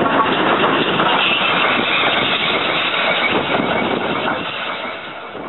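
GWR 0-6-2 tank steam locomotive 5643 running past close by and drawing away along the track, its sound fading toward the end.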